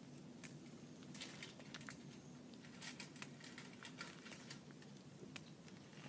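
Faint rustling and small snapping clicks of a hand picking young mugwort shoots among garden stones, in short clusters about a second in, around the middle, and once near the end.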